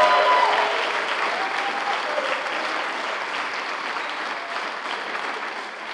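Audience applauding, the clapping dying down gradually.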